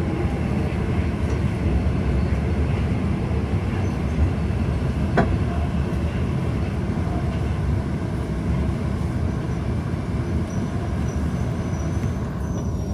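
Steady low rumble of a subway train at an underground Tokyo Metro Marunouchi Line platform, with one sharp click about five seconds in.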